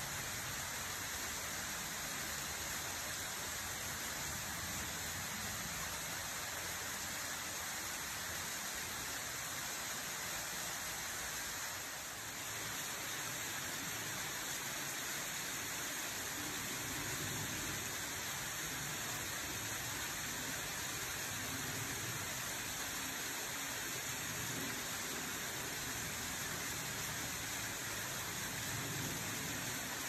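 Ayahiro Falls, a narrow mountain waterfall, pouring steadily into the pool at its foot: an even, continuous rush of falling water, dipping slightly for a moment about twelve seconds in.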